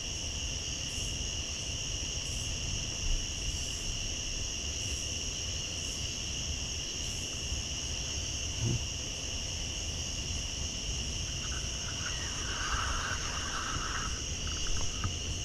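Steady insect chorus: a continuous high trill that never lets up, over a low even rumble.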